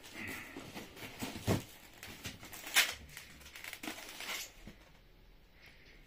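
Cardboard and packaging rustling and crinkling as a boxed airgun is pulled out of a shipping carton, with a couple of light knocks against the box about one and a half and three seconds in.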